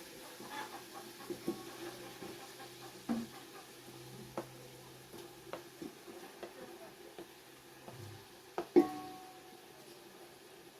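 Scattered clinks and knocks of a cooking utensil against a pot as chopped cowpea greens are added and worked in, with one sharp knock near the end.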